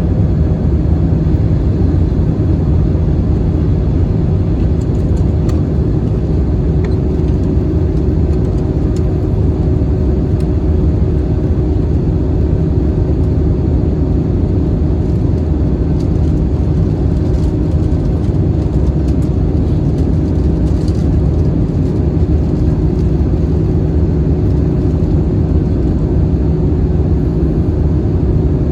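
Airbus A321-211 cabin noise: the steady drone of its CFM56-5B engines and the airflow along the fuselage, heavy in the low end with a faint steady hum.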